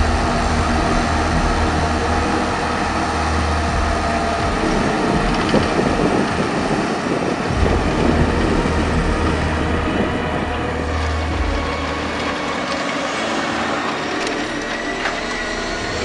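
John Deere 8295R tractor's six-cylinder diesel engine running steadily under load, pulling a ten-furrow Lemken reversible plough through the soil, with a dense rumble of turning earth and implement noise.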